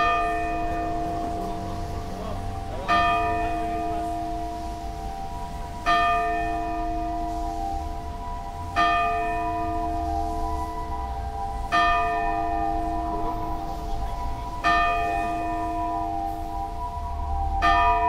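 Sapporo Clock Tower's bell striking the hour: seven strokes, one about every three seconds, each ringing on into the next, telling seven o'clock.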